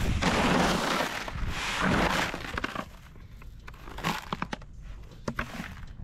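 Dry cattle feed pouring from a bucket into a plastic trough: two loud rushing pours, each about a second long, in the first two seconds, then scattered ticks and taps as the last of the feed drops in.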